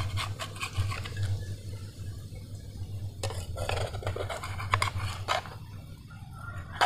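A utensil clinking and scraping against a frying pan as a thin cooked egg sheet is lifted out, in several short scattered bursts over a low steady hum.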